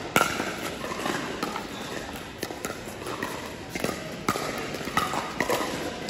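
Sharp pops of pickleball paddles hitting the plastic ball: one loud pop just after the start, then scattered quieter pops.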